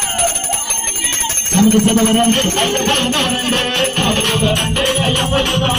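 Devotional bhajan music with bells jingling and rattling throughout; a stronger low melody comes in about a second and a half in.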